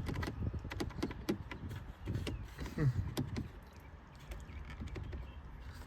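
Scattered light clicks and knocks of a plastic dashboard control panel being handled and wiggled in its rubber-grommet mounts.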